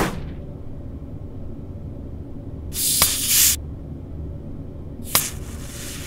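Crown cap being levered off a glass soda bottle with a bottle opener. About halfway in there is a click and a short hiss of escaping gas. Near the end comes a sharper pop, then a longer fizzing hiss as the carbonation vents.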